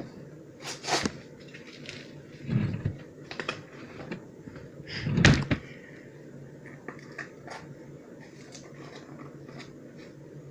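Knocks and thuds of things being handled on a table, about four distinct hits with the loudest about five seconds in, over a low steady hum.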